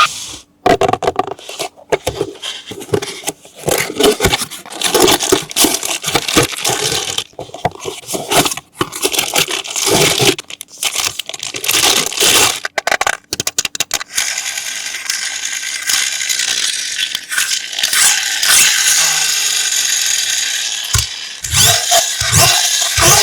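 Toy packaging being handled and torn open: irregular rustling, crinkling and scraping with clicks and knocks, which settles into a steadier rasping noise about halfway through.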